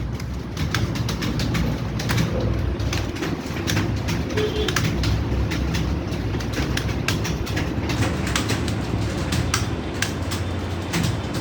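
Many computer keyboards clattering as several typists key at once, a dense run of irregular key clicks over a steady low hum.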